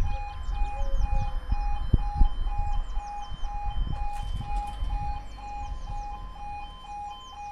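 Level crossing warning alarm sounding, two tones alternating about twice a second, while the crossing is still in its warning sequence as the barriers lift. Wind rumbles on the microphone in the first couple of seconds.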